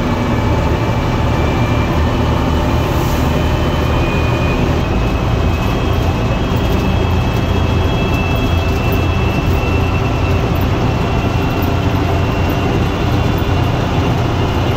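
Bristol VR double-decker bus under way with its Leyland 501 diesel engine running, heard from inside the passenger saloon as a steady drone with a faint high whine that rises slowly.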